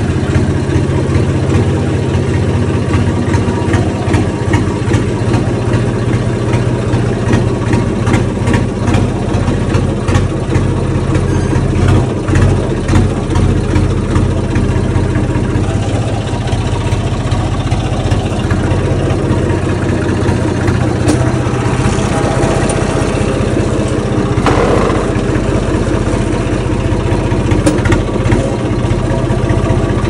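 Tractor diesel engine running steadily with a low, even drone, with scattered light rattles and clicks over it.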